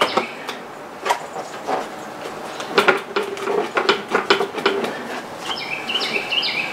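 Hard plastic top cover of a Yamaha HPDI outboard being tugged and rocked, knocking and clicking as its front is worked loose from the rubber grommets that hold it on tight. A bird sings short repeated notes near the end.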